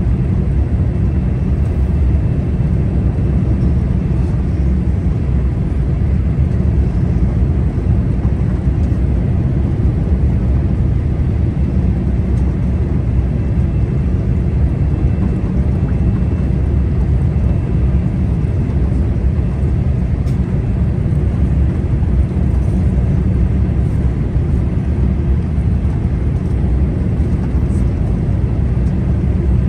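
Steady low rumble inside a Boeing 787-8 cabin during the descent to land: jet engine and airflow noise heard at a window seat over the wing, with a faint steady high tone above it.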